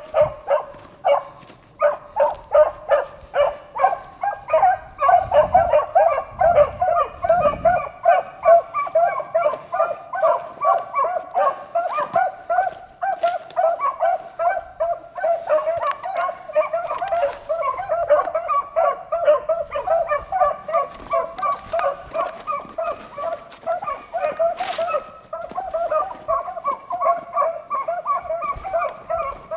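Pack of beagles baying on a rabbit's track, the sign that the hounds are running the rabbit. It is a rapid, unbroken chorus of overlapping bays and yelps that starts abruptly.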